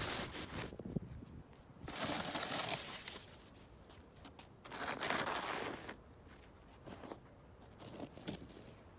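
Snow shovel scraping and pushing snow, three long scrapes each about a second, then a few smaller scuffs.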